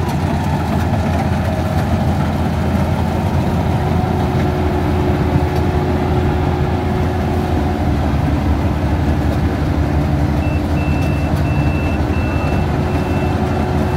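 Combine harvester engine running steadily with a loud low drone. About three-quarters of the way in, a high-pitched beeper starts, sounding a run of evenly spaced beeps of about half a second each.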